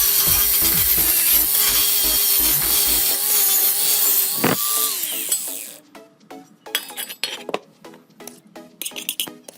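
A power tool grinding or sanding, steady and loud, that stops about five and a half seconds in, followed by scattered clicks and scrapes of a tool being handled. Music plays underneath.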